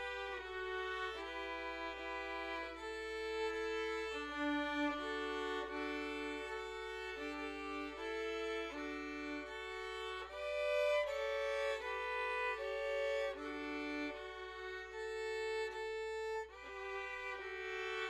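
Violin ensemble playing a piece together, with several parts sounding at once in a steady run of short held notes.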